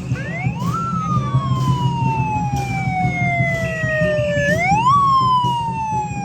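A siren wailing: its pitch rises quickly, then slides slowly down over several seconds, and rises again about four and a half seconds in, over a steady beat of percussion.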